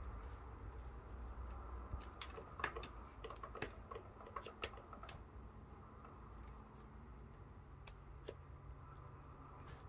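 Small plastic clicks and taps from handling an Aneng 681 multimeter and pushing test-lead plugs into its input jacks: a quick run of clicks a couple of seconds in, then a few scattered ones later, over a low steady hum.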